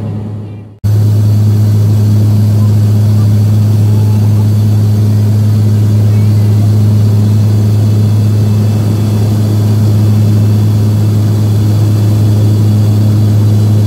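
Steady cabin drone of a propeller aircraft in flight: a loud, low, even hum with a pitched tone over rushing noise. It cuts out briefly just after the start and comes back abruptly.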